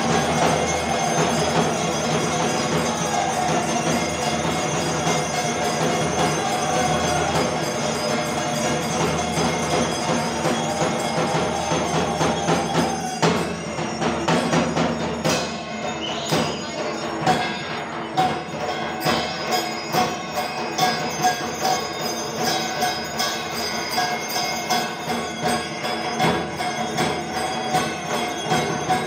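Live temple arati percussion: a barrel drum beaten with continuous ringing of bells and clanging metal. From about halfway through, the drum strokes stand out more sharply in a steady beat.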